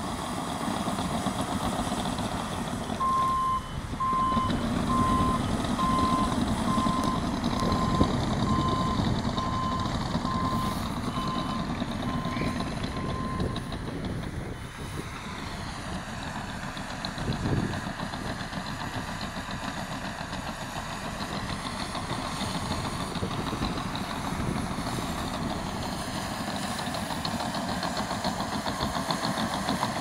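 Caterpillar D6N bulldozer's diesel engine working under load as it pushes gravel. A reversing alarm beeps at an even pace for about ten seconds, starting a few seconds in.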